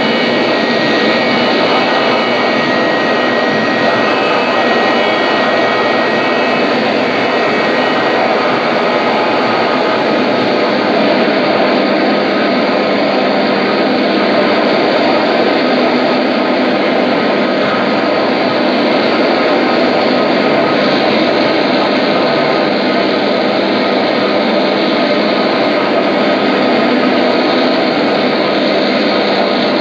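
Live noise music: a loud, steady, dense wash of noise with no beat or melody, with a faint thin high tone held through the first several seconds.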